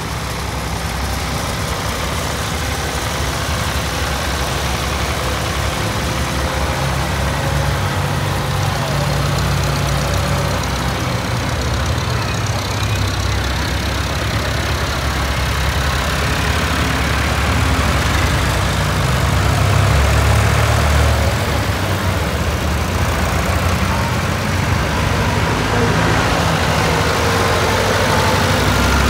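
Diesel farm tractors, Ford and Massey Ferguson, running at low road speed as they drive past one after another. The engine sound is steady and swells a little about two-thirds of the way through as one passes close.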